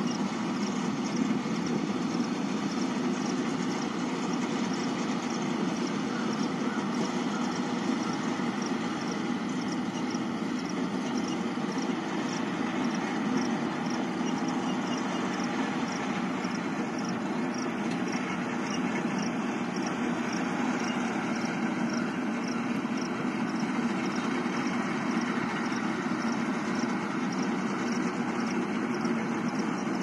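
Vishal 435 combine harvester running steadily while it cuts wheat: a continuous, even machine drone.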